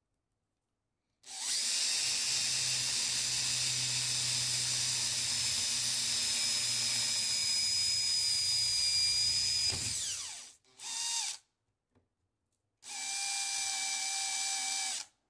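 Cordless drill with a 3/8-inch Forstner bit boring into a fiberglass window sash: one steady run of about nine seconds that winds down at the end, a short burst, then a second run of about two seconds.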